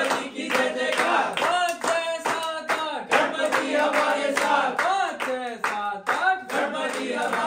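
A group of people clapping in time, about three claps a second, while singing a Ganpati devotional song together.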